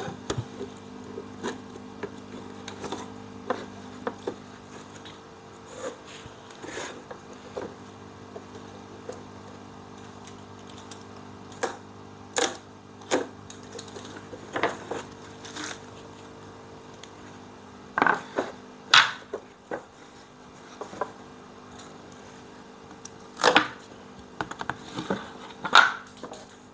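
Slatted wooden rack panels being handled and laid out on a tile floor: irregular wooden knocks and clatters, a few louder ones in the second half, over a steady low hum.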